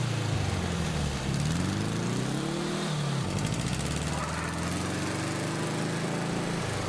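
Car engine pulling through the gears, its pitch rising in long sweeps and falling back at each change, over road noise.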